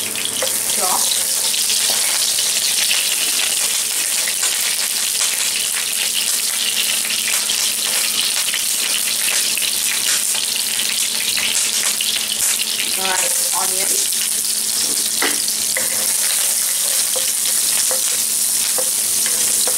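Chopped garlic sizzling steadily in hot olive oil in a nonstick wok; near the end, chopped onion in the oil is being stirred with a wooden spatula.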